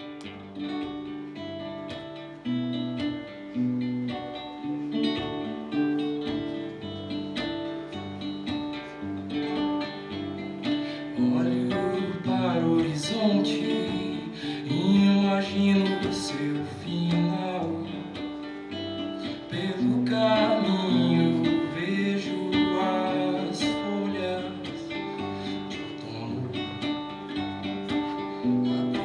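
Acoustic guitar playing a song, with a voice singing from about eleven seconds in.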